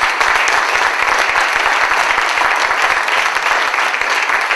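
Crowd applauding loudly, a dense, continuous patter of many hands clapping.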